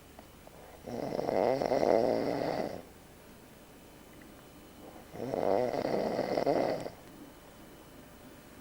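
A man snoring in his sleep: two long, rattling snores of about two seconds each, roughly four seconds apart, with quieter stretches between them.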